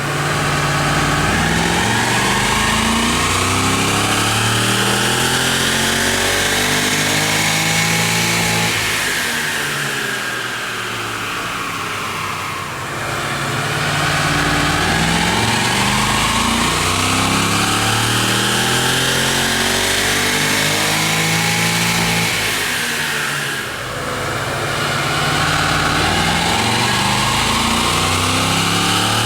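Chevy SS's LS3 V8 revving hard on a chassis dyno. The engine climbs steadily in pitch for about eight seconds, falls back for a few seconds, then climbs again in a long pull of about ten seconds. It drops off briefly and starts rising once more near the end.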